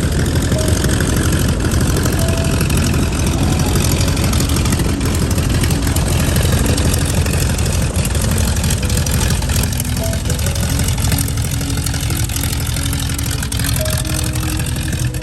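Aircraft engines of a two-ship aerobatic formation flying past: a loud, steady low drone with higher tones slowly sliding in pitch as the planes move.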